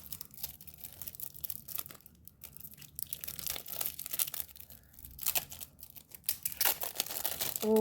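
Plastic wrapping of a trading-card pack crinkling and crackling in irregular bursts as it is handled and pulled away from the cards.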